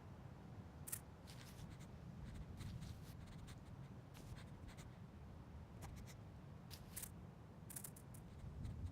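Faint foley scratching and clicking: scattered short, crisp scrapes and ticks over a low steady rumble, the sharpest about a second in and a cluster near the end.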